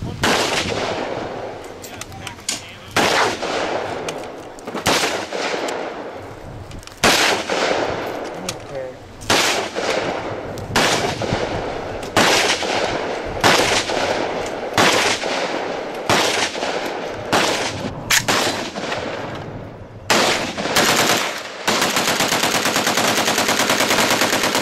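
Gunfire: single shots spaced about a second or so apart, each trailing off in an echo. Near the end comes a long, rapid burst of automatic fire lasting about three seconds.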